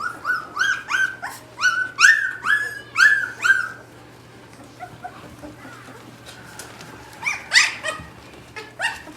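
A 16-day-old Gerberian Shepsky (German shepherd–husky mix) puppy crying: a quick run of about eight short, high-pitched squealing cries, about two a second, over the first four seconds, then a couple more cries near the end.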